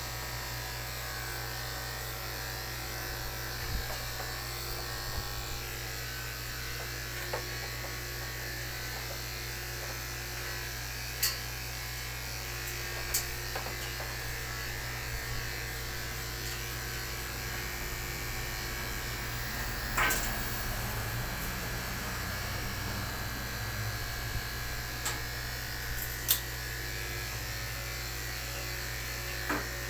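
Electric pet hair clippers running with a steady hum as they shave a dog's matted coat, with a few short clicks now and then.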